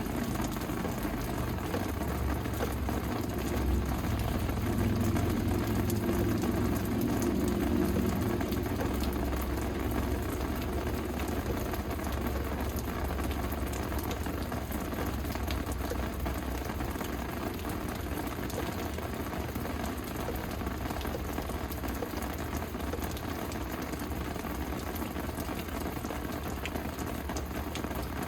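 Steady rain falling, a dense patter of drops, over a low rumble that swells for several seconds near the start.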